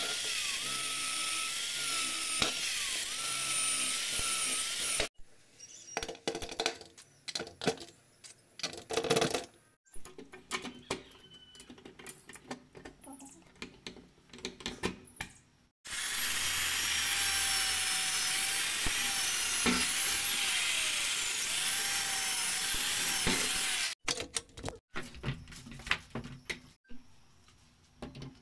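Handheld power drill running in two long stretches, about five seconds and then about eight seconds, its whine wavering with load as it drives screws into the brass bolt fittings of a wooden door. Between the runs come clicks and knocks of the brass hardware being handled and fitted.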